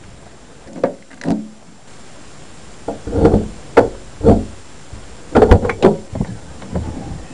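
An irregular series of about a dozen sharp knocks and thumps, some in quick clusters.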